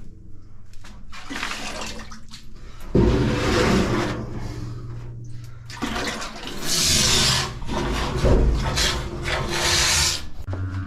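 Pump drawing the last of the heating oil out of a tank being pumped dry: a steady low hum under repeated surging, gurgling rushes of oil and air through the hose.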